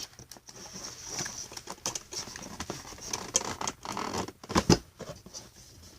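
Hands working at a toy's cardboard-and-plastic packaging: a run of scratches, taps and rustles, with one louder knock a little before three-quarters of the way through.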